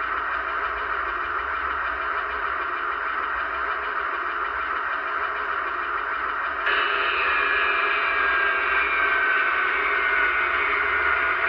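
Recorded turbine sound from the onboard sound system of an HO scale MTH Union Pacific gas turbine locomotive model: a steady rushing whine through the model's small speaker. About two-thirds of the way in it steps louder and a high whine slowly falls in pitch.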